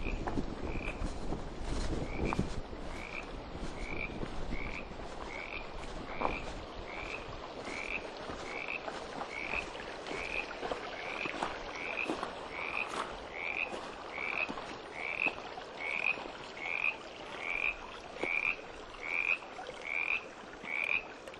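A frog calling over and over, one short high note roughly every two-thirds of a second, getting louder toward the end.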